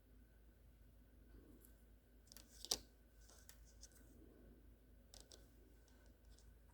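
Faint packaging handling: scattered small crinkles and clicks, with one sharp click about two and a half seconds in.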